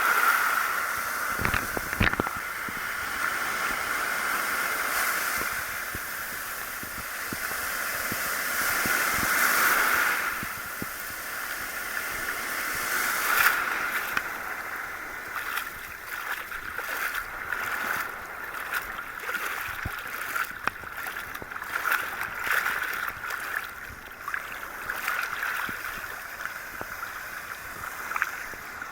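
Sea water sloshing and waves washing around an action camera held in the surf, heard from inside its waterproof housing. The wash swells and fades several times, with small crackles through the second half.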